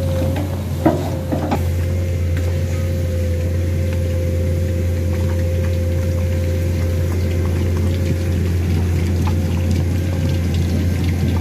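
Komatsu crawler excavator's diesel engine running steadily under load, with a steady whine over it that fades out near the end. A couple of sharp clunks come about a second in.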